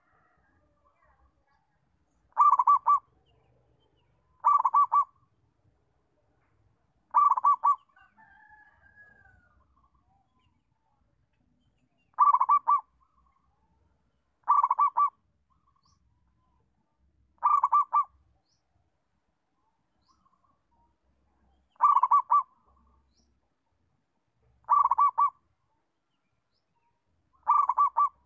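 Zebra dove (perkutut) cooing: nine short bursts of rapid staccato notes, one every two to five seconds. A faint rising-and-falling whistle from another bird comes between the third and fourth bursts.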